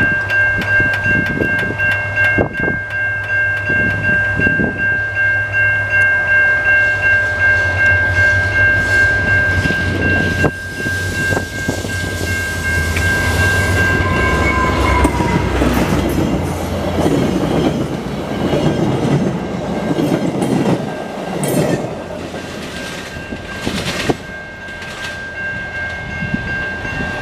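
VIA Rail F40 diesel locomotive approaching and passing close by under power, its engine drone and horn dropping in pitch as it goes past about halfway through. A level-crossing bell rings steadily throughout. After the locomotive, the passenger cars roll past with wheels clicking over the rail joints.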